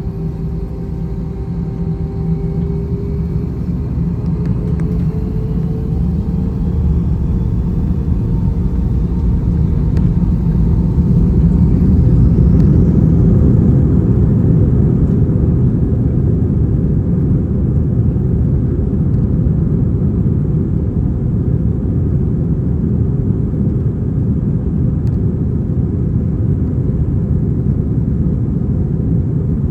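Cabin sound of an Airbus A321-231's IAE V2500 turbofan engines spooling up to takeoff thrust. A rising whine over the first several seconds, then a loud, steady low rumble as the airliner rolls for takeoff. The rumble is loudest about 12 to 14 seconds in and then holds steady.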